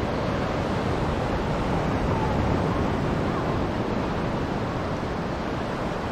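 Ocean surf, a steady rushing wash of waves.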